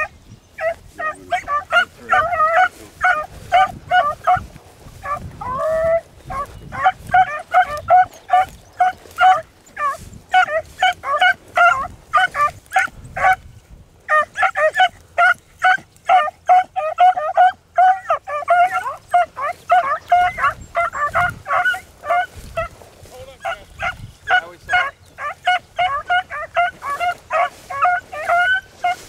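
Beagles baying as they trail a rabbit: rapid, repeated short cries that run on with a few brief breaks.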